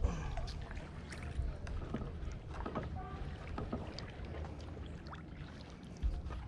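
A kayak being handled on the water: scattered light knocks and clicks from the hull and gear over a low steady rumble, with a louder bump near the end.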